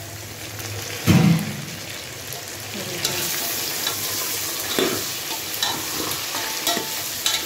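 Mutton, tomatoes and green chillies sizzling in hot oil in a pressure cooker while a spoon stirs them, with steady sizzling and scattered clicks and scrapes of the spoon against the pot. There is a louder knock about a second in.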